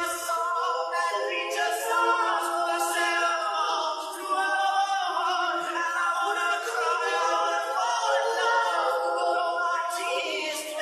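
Unaccompanied singing, several voices together like a small choir, thin with no bass.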